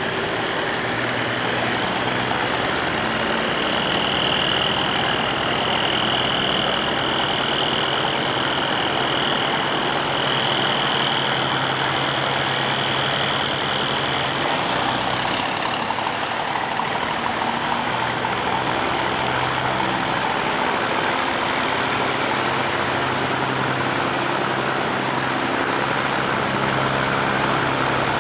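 Barge engine running steadily, with a high whine over it for about the first half.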